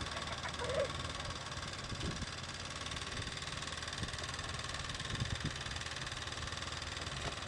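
An engine running steadily, a continuous even drone with no sharp changes.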